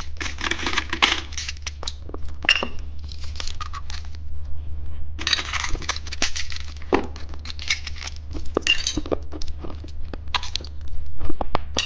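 Plastic candy packaging being handled and opened: irregular crinkling and tearing with small clicks and taps, over a steady low hum.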